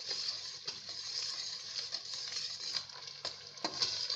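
Onions, tomatoes and tomato paste sizzling in hot oil in a cooking pot, with a few sharp clicks of a spoon stirring against the pot in the second half.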